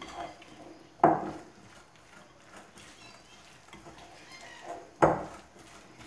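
Two harsh calls from a maracanã parrot, about four seconds apart, over faint squelching of cake batter being mixed by hand in a glass bowl.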